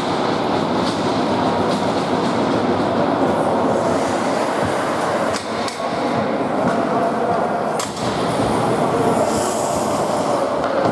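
Ice hockey being played in an indoor rink: a steady noisy wash of skates on the ice and the crowd in the hall, broken by a few sharp knocks of sticks and puck about halfway through.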